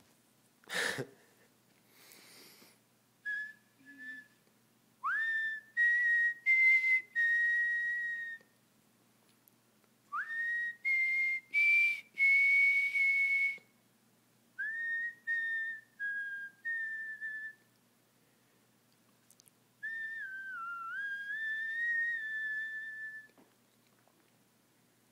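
A person whistling a tune in five short phrases with pauses between them, mostly held level notes, some starting with an upward slide. A brief sharp noise sounds about a second in.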